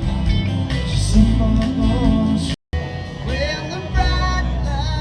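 Music with singing, cut by a brief total dropout about halfway through.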